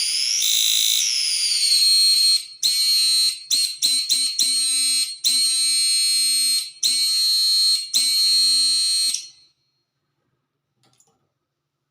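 High-pitched electronic whine from a homemade electric fishing machine's oscillator circuit, a piercing tone that wavers in pitch at first, then is switched on and off a dozen or so times in quick, uneven pulses before cutting off about nine seconds in.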